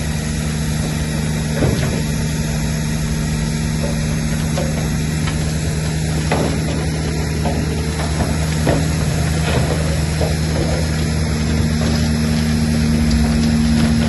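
Heavy bulldozer's diesel engine running steadily under load, with scattered clanks and knocks of its tracks and pushed rock.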